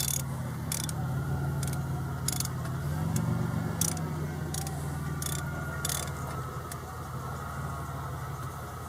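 Steady low running hum like an idling car engine, with sharp clicks about once a second on top.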